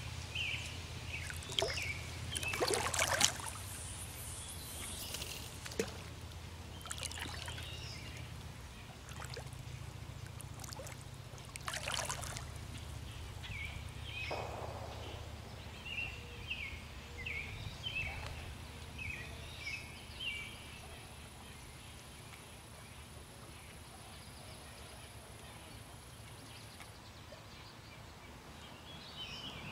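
Quiet riverside ambience: faint water sounds at the bank, a few brief rustles in the first third, and a run of short bird chirps about halfway through.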